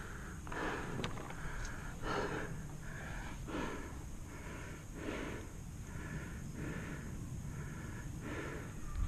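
A paintball player breathing hard and fast behind cover, close to the microphone: a steady run of short in-and-out breaths, about one every half second to a second.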